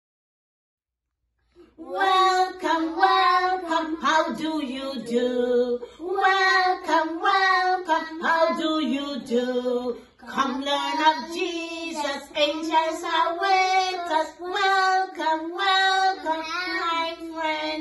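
Silence, then about one and a half seconds in, young children and a woman start singing a song together without accompaniment.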